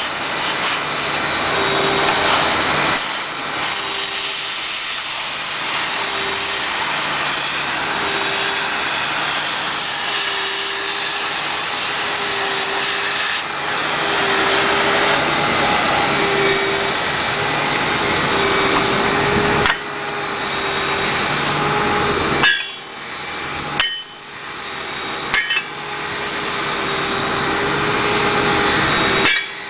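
A power tool runs steadily on the excavator track with a rasping noise and a faint tone that pulses about every second and a half. Near the end it stops and starts again several times.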